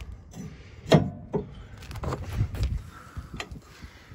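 A few sharp knocks and clicks over a low rumble, the loudest about a second in with a smaller one just after it.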